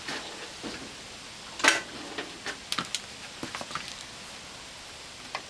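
Scattered light clicks and clinks of metal brake parts being handled at a truck's rear wheel hub, with one louder knock about a second and a half in.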